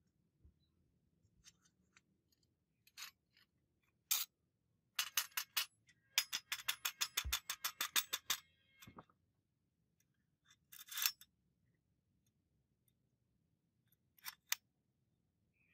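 Rubber mallet tapping a wooden sword grip down onto the tang's threaded rod: a fast run of sharp taps, about seven a second, through the middle, with a few single clicks before and after.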